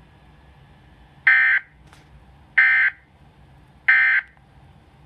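Emergency Alert System end-of-message tones: three short, identical bursts of SAME digital data, about 1.3 s apart, signalling the end of the tornado warning broadcast.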